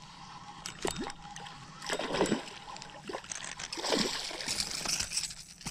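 A small striped bass splashing at the water's surface in several short spurts as it is reeled in to the bank.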